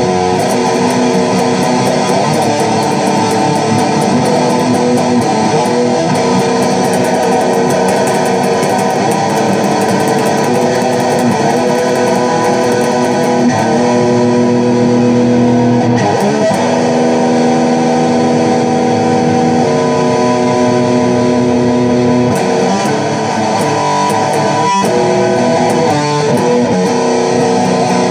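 Stratocaster-style electric guitar played loud through an amplifier: strummed chords that ring and change every second or two.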